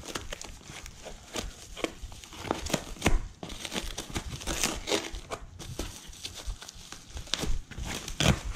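Foam packing sheet and plastic wrap crinkling and tearing as hands pull them off a boxed bike part, an irregular run of crackles with a few sharper rips.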